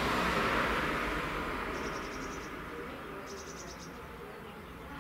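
A broad rushing noise fades away over the first couple of seconds. Then an insect chirps twice: two short trains of rapid, high-pitched pulses, about two seconds in and again a second and a half later.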